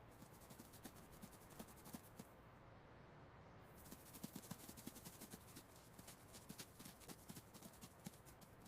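Faint, rapid, irregular patter of tiny clicks and scratches: a mouse scurrying, its claws tapping on a hard surface.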